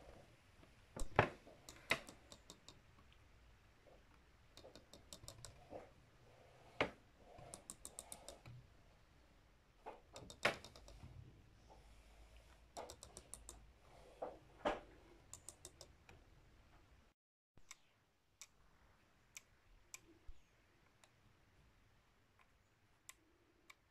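Lego Technic gear-and-plate ratchet clicking as the wheel turns, the plate snapping over the gear's teeth in quick runs of clicks, with a few heavier knocks. Later, single ticks come a few seconds apart.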